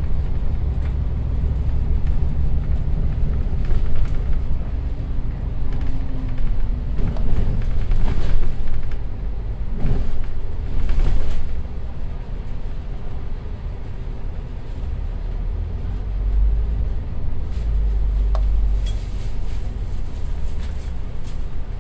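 Double-decker bus's engine and drivetrain rumbling as it drives at low speed, heard from inside on the upper deck. Body rattles and knocks come through in the middle, and the rumble deepens about three-quarters of the way through.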